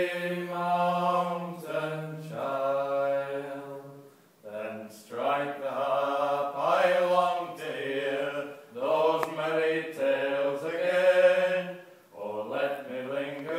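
Two men singing an old English song unaccompanied, in long drawn-out notes, with short breaks for breath about four seconds in and again near the end.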